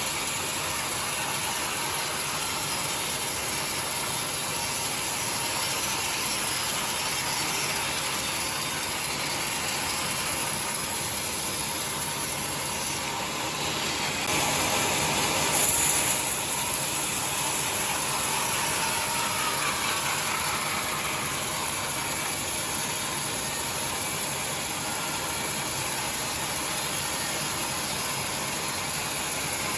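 Sawmill machinery running steadily while ripping timber into boards, with a louder surge about halfway through.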